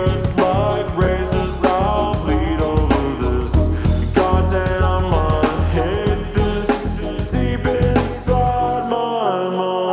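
Background music with a steady beat, heavy bass and a bending melodic line; the drums and bass drop out about nine seconds in, leaving held tones.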